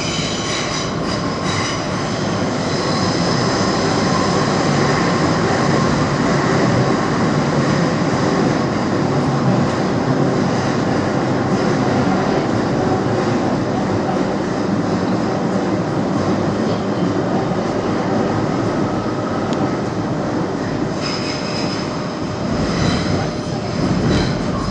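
Metro train in motion: a steady running rumble, with high-pitched wheel squeal in the first couple of seconds and again near the end.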